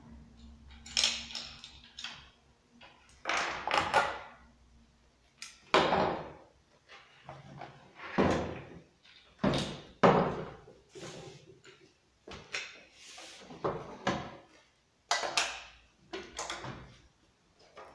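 Hands working on a Husqvarna 390XP chainsaw as its clutch cover is taken off and the guide bar is fitted. About a dozen irregular knocks, clicks and scrapes of plastic and metal parts, some of them set down on a wooden bench.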